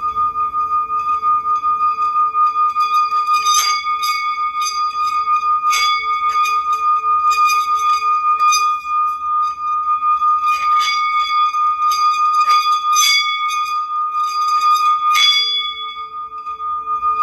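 Brass singing bowl sung by rubbing a mallet around its rim. It gives one steady ringing tone with higher overtones, its loudness wavering quickly, and a few sharp clicks cut in now and then.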